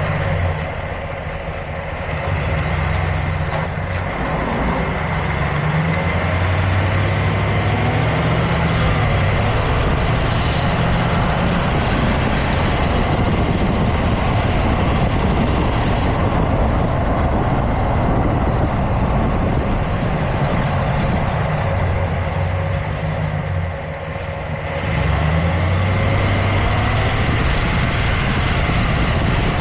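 Motor vehicle running with a steady low rumble and dense mechanical noise. Its low engine tones shift in pitch now and then, and it briefly quietens twice.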